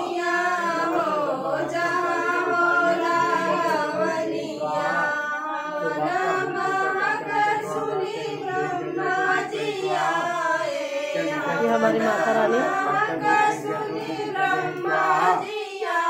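A group of people singing a devotional song together during a havan fire ritual, voices holding and bending long notes.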